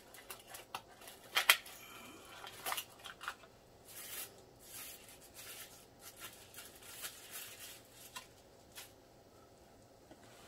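Cardboard and paper packaging being handled: a small card box and its insert handled and a paper sheet unfolded, giving scattered rustles and clicks, the sharpest click about a second and a half in.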